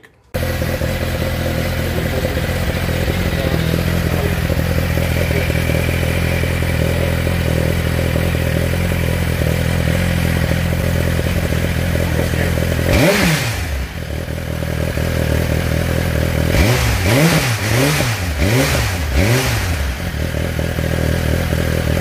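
Suzuki GSX-R1000 inline-four sport bike engine idling steadily on an aftermarket-test exhaust, revved once about halfway through, then blipped about four times in quick succession near the end.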